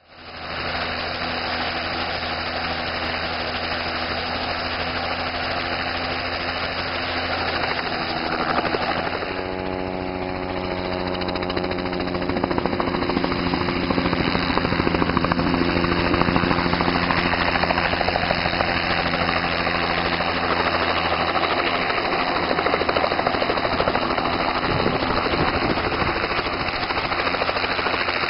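Light helicopter running close by: rotor and engine noise, loud and steady, with the engine tones shifting in pitch about ten seconds in as it flies.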